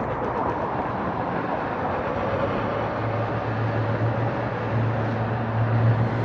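Wind rush and road noise from riding a Nikola+ electric unicycle at speed along a city street, with a steady low hum underneath and car traffic passing alongside.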